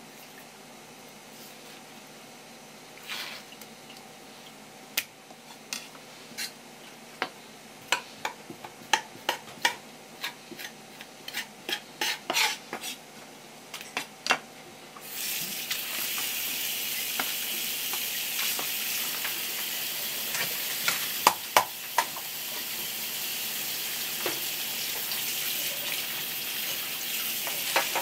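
Scattered sharp clicks and knocks of kitchen utensils, then about halfway through a steady frying sizzle starts abruptly and carries on, with a few clicks over it.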